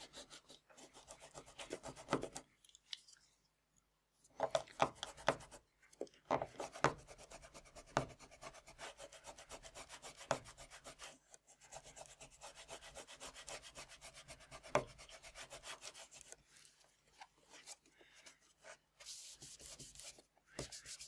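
Rag wrapped over a knife blade rubbing and scraping along a car's black rubber door moulding, cleaning out paint overspray that is stuck deep in the moulding. Faint scratchy strokes with a few sharp clicks, and a pause about three seconds in.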